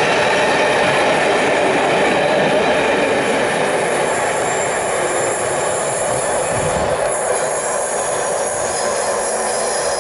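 Train of passenger coaches rolling past at speed: the steady rumble and rattle of wheels on the rails, easing off a little after about five seconds as the rear of the train moves away.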